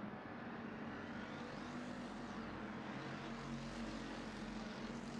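A field of IMCA Hobby Stock race cars running laps on a dirt oval: a steady drone of several engines, with the note swelling and falling as cars go by about two seconds in and again near the end.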